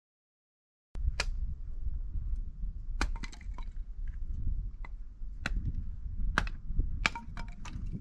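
Dry sticks snapping and cracking in irregular sharp breaks, over a low rumble of wind on the microphone. The sound cuts in abruptly about a second in.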